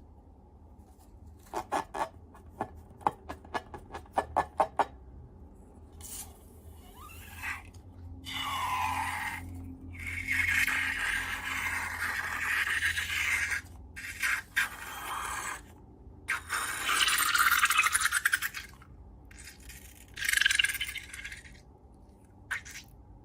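A quick run of about a dozen sharp clicks, then several scraping and rubbing passages lasting a second or three each, from close-up handling of slime and balloon materials.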